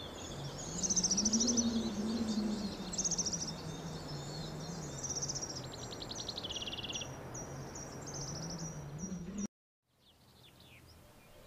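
Several songbirds singing in a mix of quick chirps and trills, with a run of repeated short falling notes in the second half, over a low wavering hum. The sound cuts off abruptly near the end, leaving only a few faint chirps.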